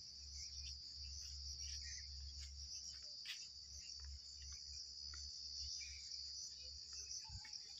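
Steady, high-pitched chorus of insects chirring, with a few faint clicks and rustles.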